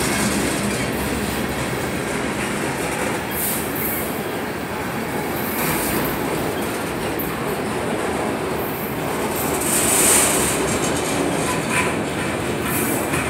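Union Pacific freight cars, boxcars and autorack car carriers, rolling past close by with a steady rumble and clatter of steel wheels on the rails. A brief high squeal comes about ten seconds in.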